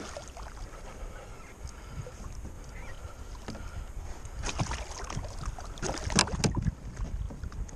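Hooked false albacore splashing at the surface beside the kayak, with a cluster of sharp splashes about five to six and a half seconds in, over a steady low rumble of wind and water.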